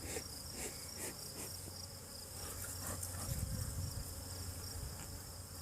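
Agitated honeybees buzzing around an opened hive, over a steady, pulsing high-pitched chirping of insects in the grass. A low buzz swells briefly about halfway through.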